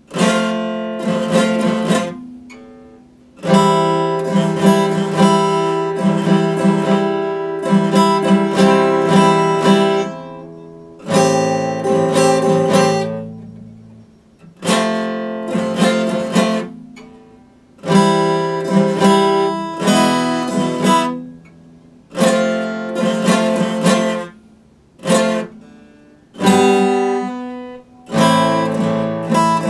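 Epiphone acoustic guitar played solo: chords picked and strummed in phrases that ring out and fade away, with short breaks between phrases every few seconds.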